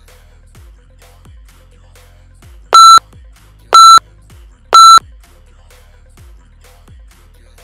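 Interval timer countdown: three loud, identical short beeps a second apart, starting about three seconds in, marking the final seconds of a rest period before the work interval begins. Quiet electronic background music with a steady beat runs underneath.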